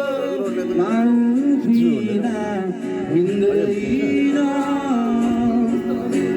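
Voices singing a song, with long held and gliding notes.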